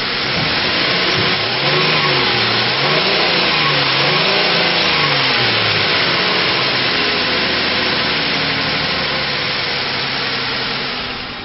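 2006 Ford Explorer's 4.0-litre V6 running, blipped up and down three times in quick succession and then settling to a steady idle.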